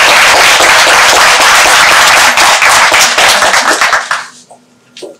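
Audience applauding, a dense run of many hands clapping that dies away about four seconds in, leaving a few last scattered claps.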